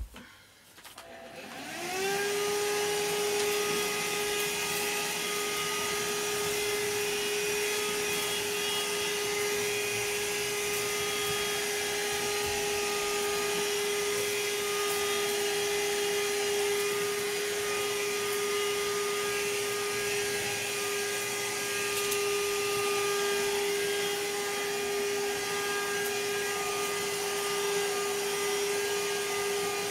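Vacuum cleaner switched on about a second in, its motor whine rising quickly up to speed, then running steadily.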